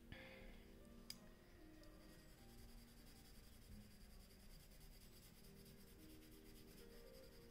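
Faint scratching of a graphite pencil shading on paper in small repeated strokes, with a single light click about a second in.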